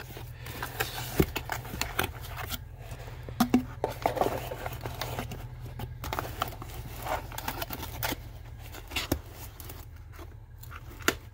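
Cardboard packaging handled on a workbench: a box and its printed sleeve sliding, flaps folding and tucking shut, with irregular scrapes, rustles and small knocks.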